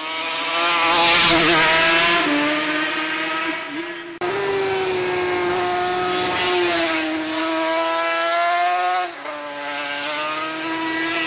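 Yamaha RD500 four-cylinder two-stroke engine at high revs as the race bike passes close, with a brief rush about a second in. The sound breaks off abruptly about four seconds in and resumes as a steady high engine note, which drops in pitch about nine seconds in.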